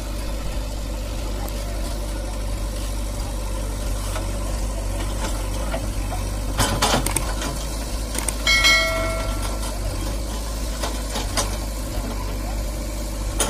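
Diesel engines of a JCB 3DX backhoe loader and a Mahindra 575 DI four-cylinder tractor running steadily. A few sharp knocks come about halfway through, followed shortly by a brief held tone.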